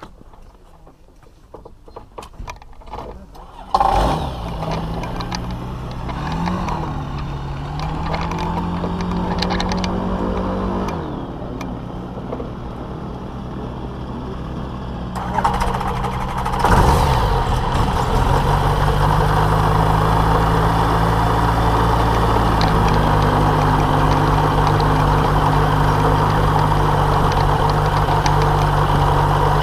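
Microlight trike's engine and pusher propeller starting about four seconds in, then running with its pitch rising and falling as it is revved. From about halfway it runs steadily louder as the trike taxis.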